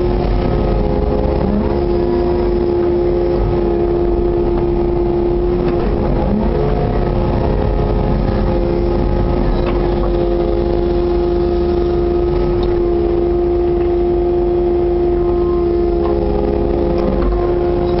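Kubota KX080-4 compact excavator's diesel engine running steadily at working revs, heard from inside the cab, with a constant hum over a low rumble as the machine dumps, swings and digs.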